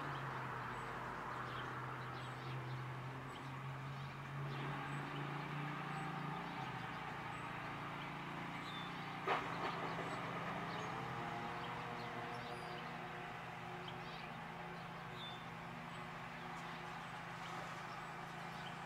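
A motor vehicle engine running steadily, its pitch gliding upward about halfway through. A few faint bird chirps and a single click are heard over it.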